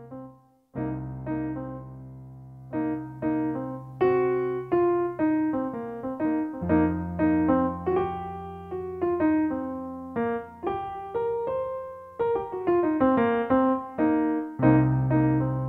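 Background piano music: a gentle melody of single struck notes over held low bass notes, with a short break just under a second in.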